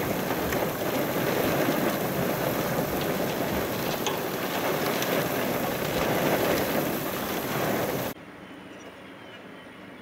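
A loud, steady outdoor rushing noise with slight swells. It cuts off abruptly about eight seconds in, leaving a much quieter background with a few faint short chirps.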